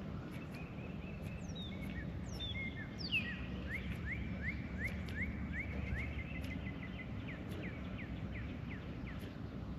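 A songbird singing a run of short, down-slurred chirps, about three a second, over a steady low outdoor rumble.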